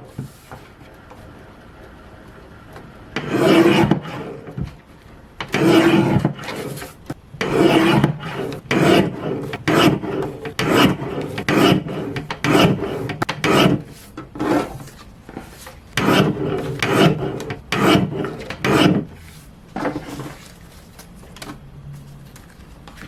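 Printer running, its print head sweeping back and forth in a long series of rasping passes, each about half a second to a second long with short pauses between.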